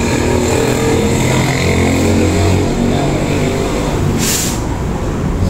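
Steady hum of an industrial sewing machine's motor running. A short, sharp hiss comes about four seconds in.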